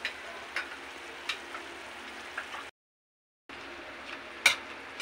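Strips of meat sizzling in oil in a wok, with a metal spatula scraping and clicking against the pan about five times, the loudest click near the end. The sound drops out completely for nearly a second midway.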